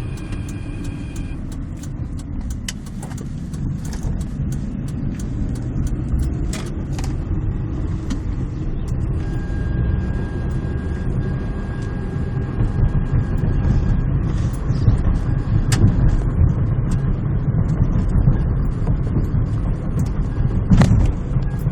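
Chevrolet Aveo running, a steady low rumble with scattered sharp clicks and knocks; this is the car's unexplained weird noise.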